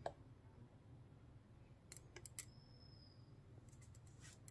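Light clicks and taps of a plastic tripod head and column being handled: one sharp click at the start, a quick cluster of clicks about two seconds in, and a few more near the end, over a faint low hum.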